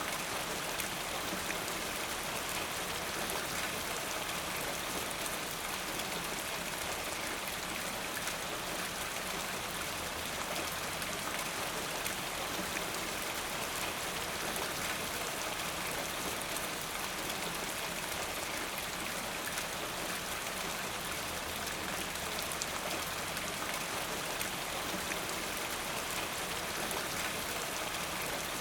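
Steady rain falling, an even hiss of many drops with fine patter on a surface, unchanging throughout.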